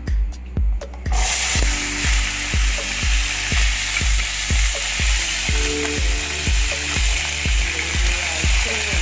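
Pea eggplants, red chilies, garlic, shallots and kaffir lime leaves hit hot oil in a frying pan, setting off a steady sizzle that starts suddenly about a second in. A background music track with a steady beat of about two thumps a second runs underneath.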